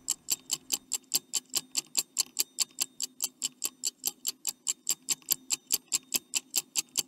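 Stopwatch ticking sound effect, a quick, even tick about four or five times a second, counting off the time allowed to answer a quiz question.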